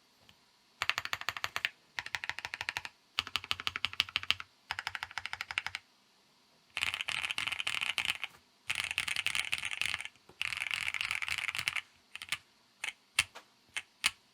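Sea75 custom mechanical keyboard being typed on in quick bursts of rapid keystrokes, each about a second long with short pauses between. A few single key presses follow near the end.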